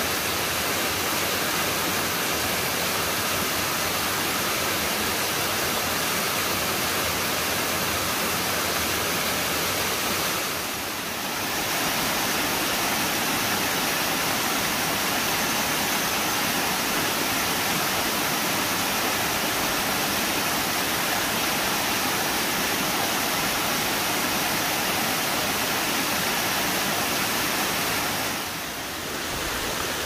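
Waterfall cascading over mossy rock into a pool: a steady, even rush of water, dipping briefly about eleven seconds in and again near the end.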